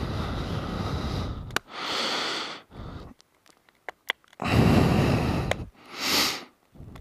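A person breathing hard close to the microphone: a series of breaths about a second long each, with short gaps and a couple of small clicks between them.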